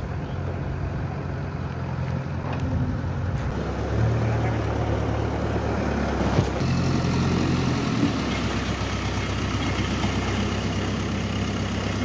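JCB 3DX backhoe loader's diesel engine running under load, its note stepping up about four seconds in and shifting again around eight seconds, with flood water rushing and splashing around the machine.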